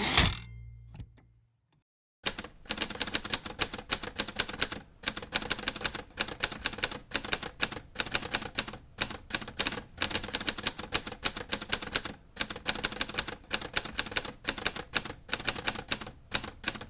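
Typewriter: a single loud clack with a brief low ring at the start, typical of the carriage being thrown back, then after about two seconds of quiet, rapid keystrokes, several a second, with short pauses between bursts.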